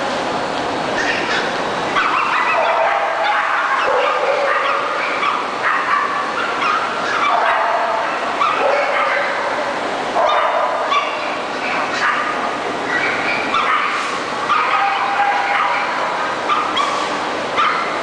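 Dogs barking and yipping over and over, a continuous run of short, overlapping high calls.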